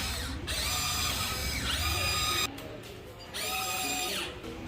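Electric motors of a Huina 1594 RC excavator whining in bursts, rising in pitch as they start and falling as they stop, with a short pause about two and a half seconds in.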